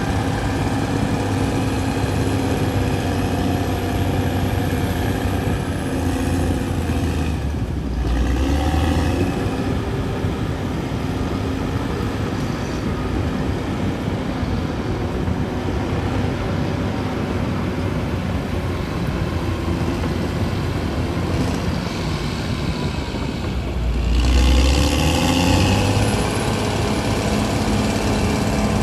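CAT D6R XL bulldozer's diesel engine running steadily as it works, swelling louder twice: about eight seconds in and again about twenty-four seconds in.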